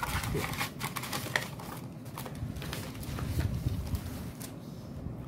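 Paper rustling and light taps as envelopes and banknotes are handled, with an irregular run of small crisp clicks.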